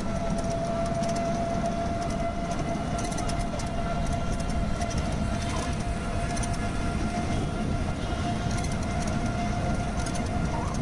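Battery-powered e-rickshaw in motion: a steady electric-motor whine over a continuous low rumble of the ride.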